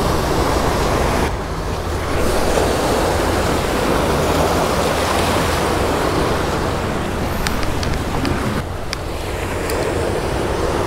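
Ocean surf breaking and washing over rock ledges, a continuous rushing that swells and eases, with wind rumbling on the microphone.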